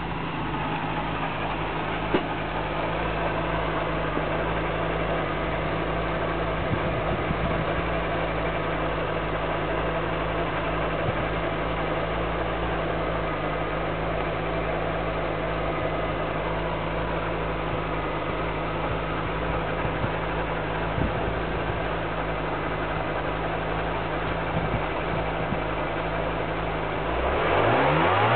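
Volkswagen G60 supercharged four-cylinder engine idling steadily, then starting to rev up near the end.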